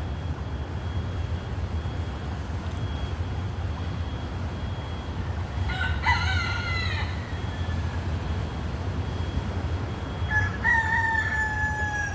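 A rooster crowing twice, about six seconds in and again near the end, each crow a long call that sags in pitch at its close, over a steady low rumble of traffic.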